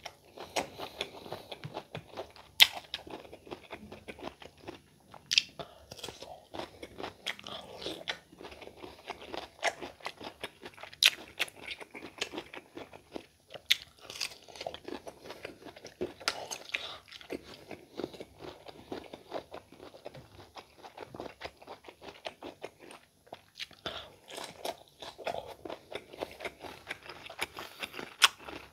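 Close-miked crunching and chewing of firm, unripe green mango slices, with sharp bite snaps scattered throughout, the loudest about two and a half seconds in and again around eleven and fourteen seconds.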